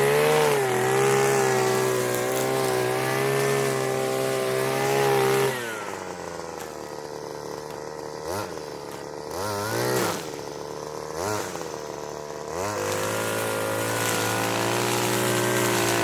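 Petrol brushcutter engine running at high speed, then dropping to idle about five and a half seconds in, blipped three times with short bursts of throttle, and opened back up to full speed near the end.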